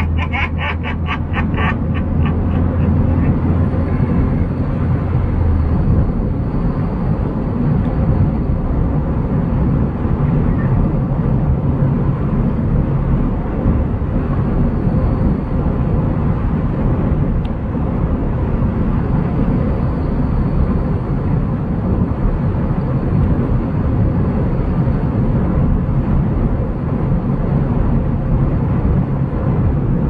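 Steady road and engine noise heard from inside a car driving on an asphalt road, with a low hum that drops away about six seconds in. A quick run of sharp taps or claps sounds in the first two seconds.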